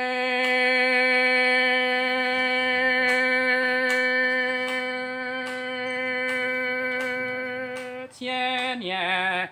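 Hmong kwv txhiaj sung poetry: one voice holds a single long, steady note for about eight seconds, then sings a short wavering phrase that drops in pitch near the end.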